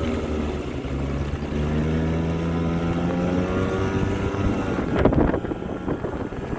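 Hyosung Sense 50cc two-stroke scooter engine running just after an engine swap, its speed dipping briefly about a second in and picking up again. A short rush of noise about five seconds in is the loudest moment.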